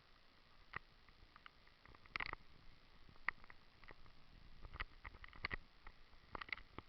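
Faint, irregular footstep scuffs and clicks on a rocky path, a dozen or so short knocks with the loudest about two and three seconds in, over a low hiss.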